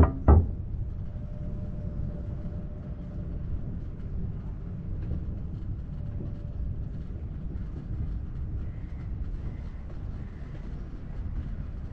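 Steady low rumble of an electric wheelchair rolling along a concrete quay, with two sharp knocks in quick succession at the very start.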